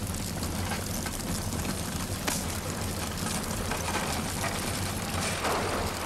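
Steady crackling and hissing of a molten lava flow burning through vegetation, with a single sharp crack about two seconds in and a swell near the end.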